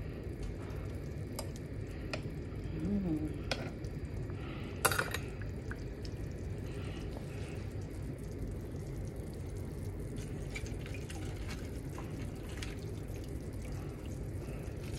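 Pot of pork belly and corn broth simmering on a gas burner with a steady low bubbling. A few light clicks of a fork against the pot come in the first five seconds, the sharpest about five seconds in.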